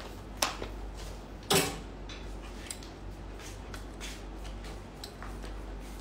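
Clothes on hangers being handled: a few light clicks and rustles, the loudest about a second and a half in, over a steady low hum.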